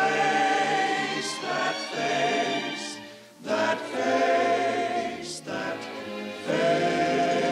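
Film score music: a choir singing long held notes without words, in three swelling phrases with short dips between them.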